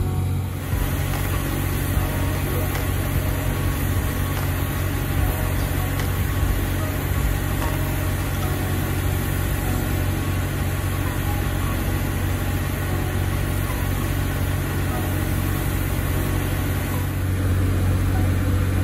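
Liebherr LTM 1220/1 mobile crane's diesel engine idling steadily with a low, even hum that grows a little louder near the end.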